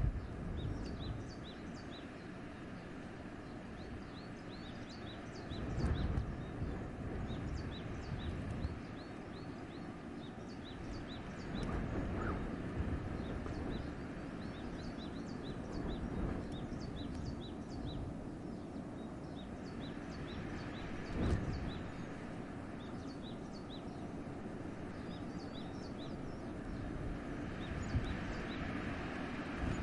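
Wind blowing through a forest, swelling in several gusts, with many small birds chirping all through in short, high, repeated notes.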